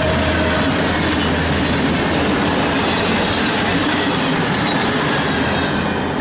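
Freight cars of a passing train rolling by, a steady rumble and clatter of wheels on the rails. In the first half second the tail of the locomotive's Nathan K5LA horn falls in pitch and fades away. The noise eases off near the end as the last car passes.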